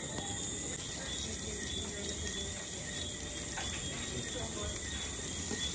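Fish deep-frying in hot oil, a steady sizzle.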